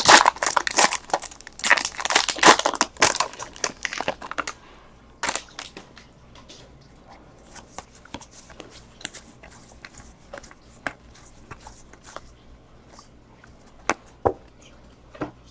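Foil wrapper of a Bowman Draft trading-card pack crinkling and tearing as it is opened, for about the first four and a half seconds. After that, only scattered small clicks and rustles of the cards being handled, with a couple of sharper ticks near the end.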